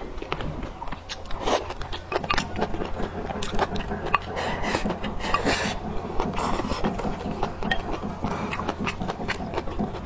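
Close-miked eating sounds: wet chewing and lip smacks full of small clicks, with longer slurps as glass noodles are sucked in, most strongly about four to six seconds in.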